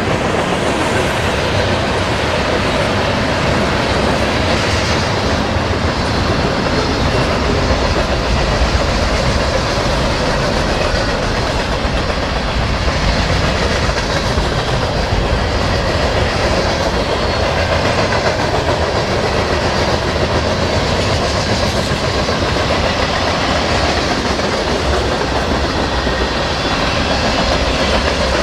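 Freight train cars (tank cars and covered hoppers) rolling past close by, their steel wheels on the rail making a steady, continuous noise with clicking over the rail joints.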